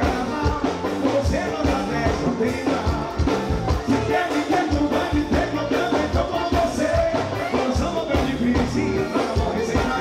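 Music with a singer over a steady drum beat.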